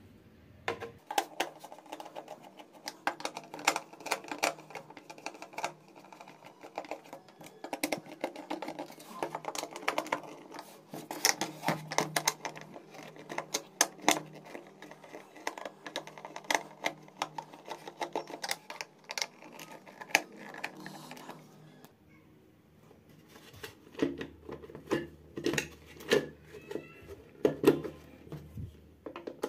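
Rapid, irregular clicking and tapping of a screwdriver and hands on the plastic housing of a motorcycle speedometer cluster as its screws are undone and the back cover is taken off, with a short break about three quarters through.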